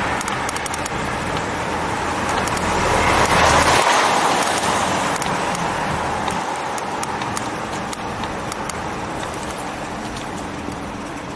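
City street traffic noise heard from a moving e-bike, swelling to its loudest about three to four seconds in and then easing off.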